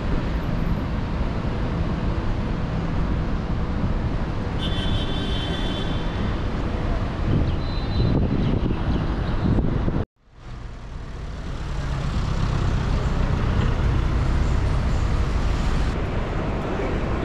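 Steady rumble of road vehicles, with a brief high-pitched tone near five seconds. It cuts out abruptly about ten seconds in and fades back up.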